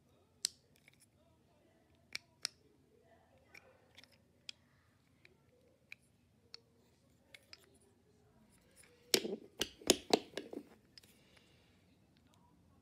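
Handling noises of a toy and its plastic packaging: scattered light clicks and taps, then a quick cluster of louder sharp rustles and clicks about nine seconds in.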